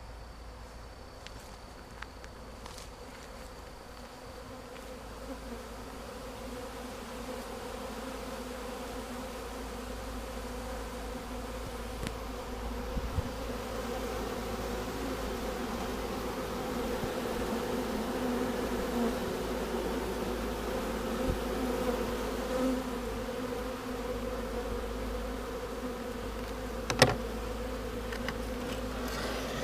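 Swarm of honey bees buzzing steadily, growing louder over the first half. A single sharp knock sounds near the end.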